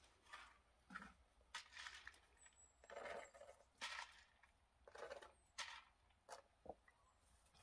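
Faint, irregular rustling and scraping, some eight short strokes, from a plastic feed tub and bag being handled and scooped.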